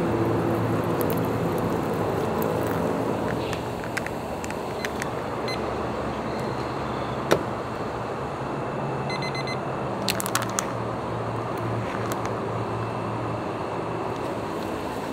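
Hot water pouring from an electric kettle into a foil pouch of instant shrimp pilaf for the first few seconds, over a steady background hum. Later come a few sharp clicks, a short run of quick beeps from a digital kitchen timer being set, and crinkling of the foil pouch.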